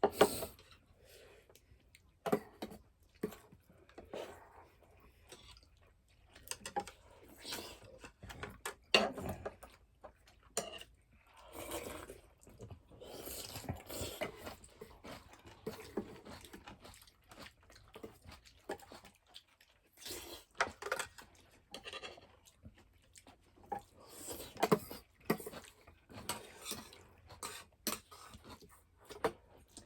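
Someone eating at close range: chewing and crunching, with many irregular sharp clicks and clinks through it.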